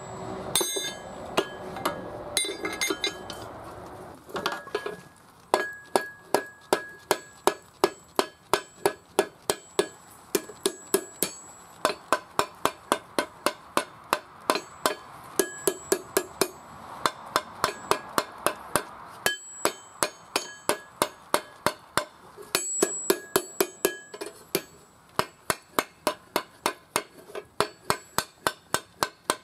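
Hammer blows on a hot axe head at the anvil, heavier and uneven for the first few seconds, then a steady rhythm of about two to three blows a second, each with a short metallic ring.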